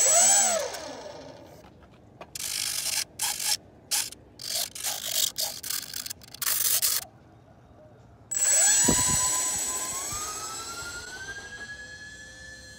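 Twin electric motors of a UMX ultra-micro RC plane whining. A short high whine falls away at the start and a string of brief irregular bursts of noise follows. About two-thirds in, the motors spool up into a steady whine that rises in pitch as the throttle opens for the takeoff run.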